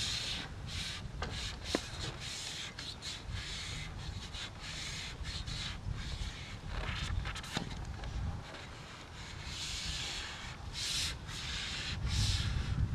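Wind rumbling on the microphone, with bursts of rustling hiss coming and going and a couple of small clicks.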